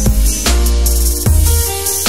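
Electronic background music with a heavy bass line, held synth notes and a regular drum beat.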